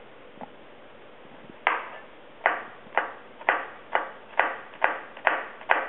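Chef's knife chopping a garlic clove on a cutting board: nine sharp knocks of the blade on the board at about two a second, starting about a second and a half in.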